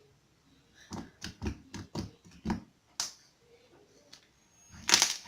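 Butter slime, made from slime mixed with softened modelling clay, being squeezed and poked by hand for ASMR: a run of short squishes and clicking pops about every half second, with a louder squish near the end.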